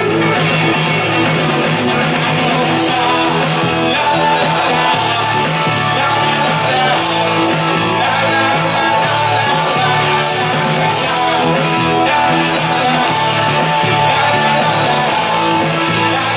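Live rock band playing an 80s cover: electric guitars, bass guitar and drums at full volume, with a steady beat and cymbals.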